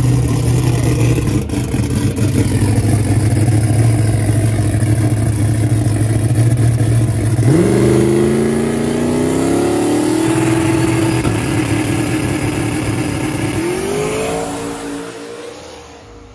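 Fox-body Mustang drag car's engine running at a steady pitch on the starting line, then launching about seven seconds in, pitch climbing through the run with a shift and a second climb near the end, fading as the car goes away down the track.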